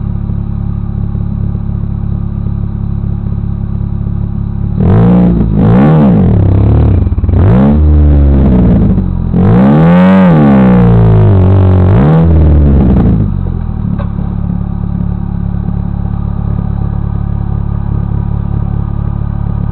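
Off-road buggy's engine idling, then revved hard in a run of rising and falling blips, the longest near the middle, as it works up a steep hill climb. It settles back to idle at about thirteen seconds.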